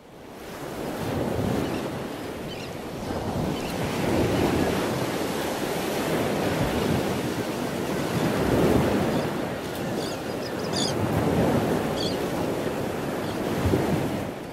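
Sea surf washing in and breaking, swelling and ebbing every few seconds, with wind. A few faint high chirps come through about ten seconds in.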